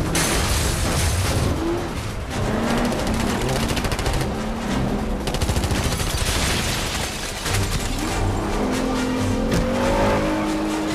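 Car-chase soundtrack: racing car engines and road noise mixed with rapid bursts of automatic gunfire a few seconds in, over music.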